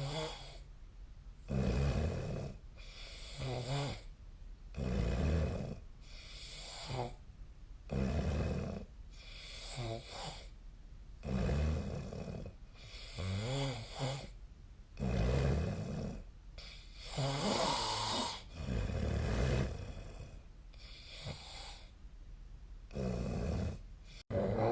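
Snoring in sleep: a rasping snore with each breath, about a dozen in all, with short quieter gaps between them.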